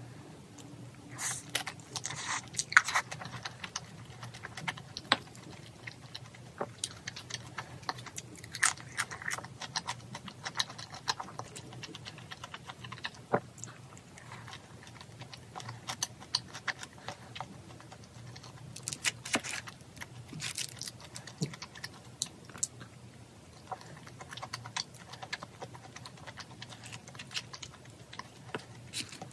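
Close-up mukbang eating sounds: chewing and smacking on shrimp, with short clicks of chopsticks and a wooden spoon against a small bowl, coming in bursts throughout.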